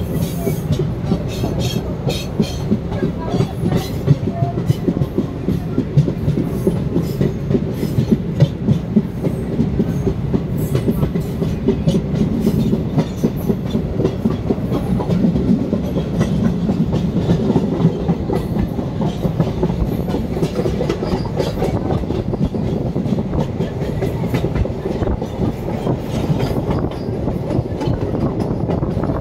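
Passenger train running, heard from the open doorway of a coach: a steady rumble of wheels on rail with the clickety-clack of wheels over rail joints and many short, irregular clicks.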